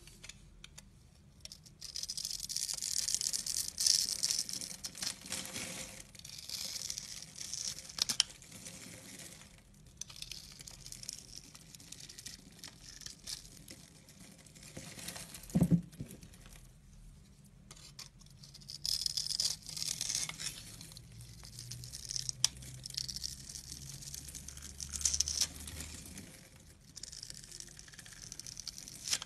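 Utility knife blade slicing through scored bars of soap, the small cubes crackling and crumbling off in runs of several seconds, with one dull knock about halfway through.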